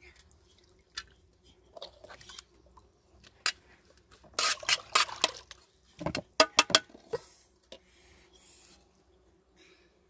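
Metal spoon and steel cooking pots clinking and scraping as a thick filling is spooned from one pot into another: scattered light clicks, a stretch of scraping a little past four seconds in, then a quick run of sharp clinks about six seconds in.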